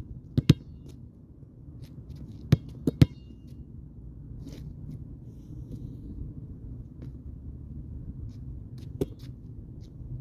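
Basketball bounced hard a few times: sharp smacks, some in quick pairs, two near the start, a cluster around the three-second mark and one more later. Some leave a brief high ringing zing like a ray-gun zap, over a steady low rumble.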